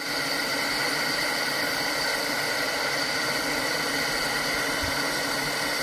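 Steam tank locomotive blowing off through its safety valves: a loud, steady hiss with several held tones in it, the sign that the boiler is at full working pressure.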